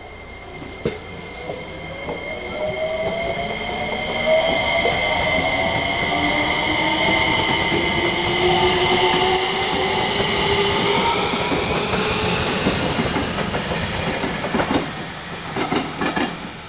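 JR Kyushu 303 series electric train running past: a whine of several tones that climbs slowly over about ten seconds, over a steady high tone. Near the end the wheels clatter over rail joints as it draws away.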